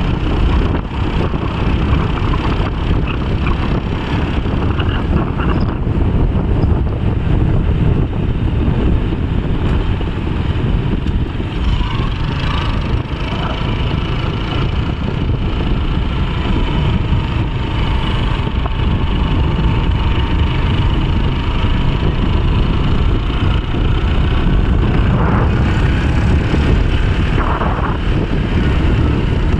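Wind buffeting the microphone over a vehicle's low, steady running, as heard while moving along.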